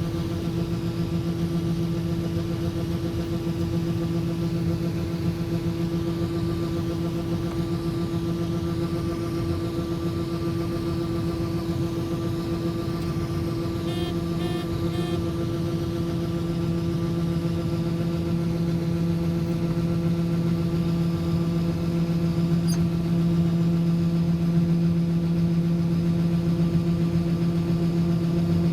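Steady drone of a farm machine's engine running at constant speed throughout, rising slightly in loudness near the end.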